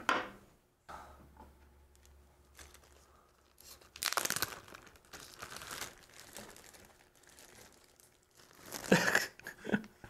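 Plastic zip-top bag of mashed potatoes crinkling as it is handled and squeezed, in spells about four seconds in and again near the end.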